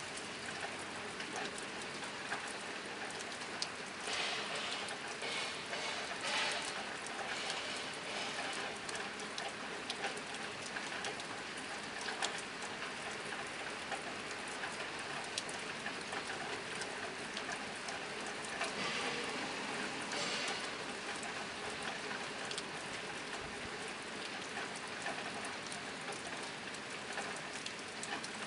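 Steady rain drumming on a tin roof: a dense patter of drops with sharper individual drip ticks, swelling a little louder twice.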